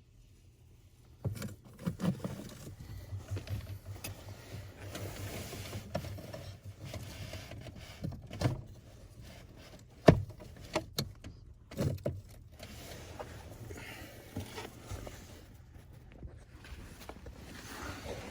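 Hand tools clanking and knocking against the metal parking brake cable hardware as vice grips pry the spring down and a screwdriver is worked through a hole to hold the cable back for slack. Irregular sharp knocks, the loudest about ten seconds in, over a low steady hum.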